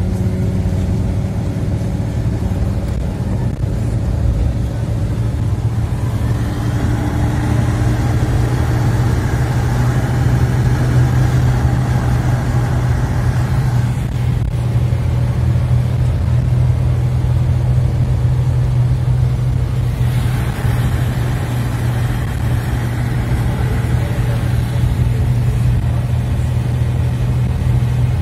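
Car interior noise while driving on a wet road: a steady low drone of engine and tyres, growing a little louder about six seconds in.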